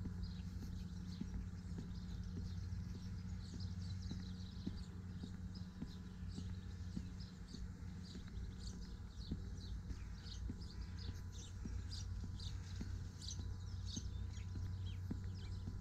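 Footsteps of someone walking, in an even rhythm of soft thumps, over a low steady hum, with many short high bird chirps throughout.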